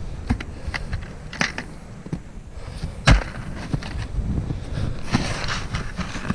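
Footsteps through dry brush and dead sticks, with scattered cracks of twigs and one sharp snap about three seconds in. A thicker stretch of crackling rustle comes near the end.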